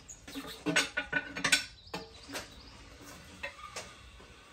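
Manual tire changer being worked by hand: sharp metal clanks and scrapes of the steel mount/demount bar against the machine's head and the wheel, several in the first two seconds, then a few lighter clicks.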